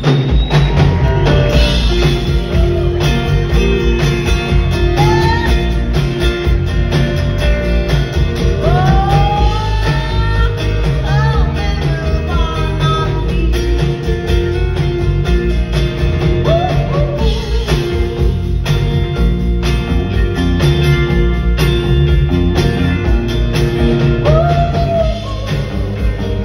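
A live band playing loud: electric guitars, drum kit and upright bass.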